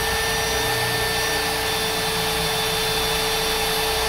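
Power drill running steadily at one constant speed, boring a handle hole through a kitchen cabinet door.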